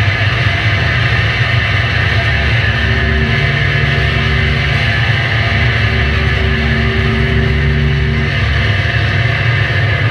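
Loud, dense noise-drone music from an electric guitar played flat on a table through effects pedals: a heavy low rumble under a wash of noise, with a couple of steady low tones sounding from about three to eight seconds in.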